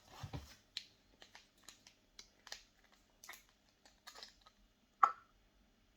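Light clicks and taps of a small beard balm container being handled and opened, with one sharper, louder click about five seconds in.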